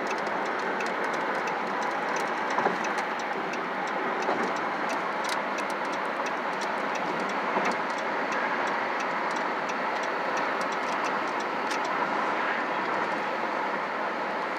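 Steady road and engine noise heard inside a moving car, with scattered faint clicks and rattles.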